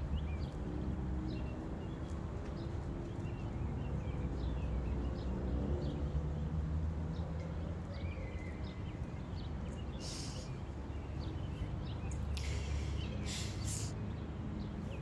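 Outdoor ambience: small birds chirping on and off over a steady low rumble, with short hissing bursts of noise about ten seconds in and twice more near the end.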